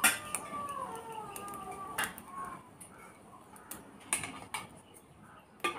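Metal clinks from a stainless-steel oil can and its lid being opened and handled: a sharp clank at the start, then single clinks about two, four and nearly six seconds in. Under them a faint, high drawn-out call slides down in pitch during the first second or two.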